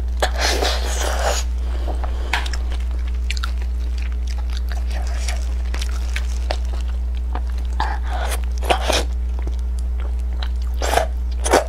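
Close-miked eating sounds of whole steamed fish: wet bites, sucking and chewing with scattered clicks and smacks, a few louder clusters about eight to nine seconds in and near the end, over a steady low hum.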